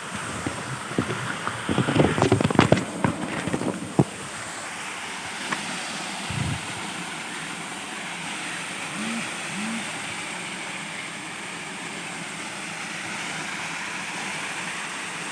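Steady rush of a waterfall. A cluster of sharp knocks and clicks comes between about one and a half and four seconds in.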